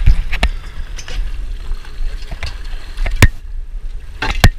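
Irregular sharp knocks and thumps from handling on a fishing boat. The loudest comes about three seconds in and a cluster falls near the end, over a steady low rumble.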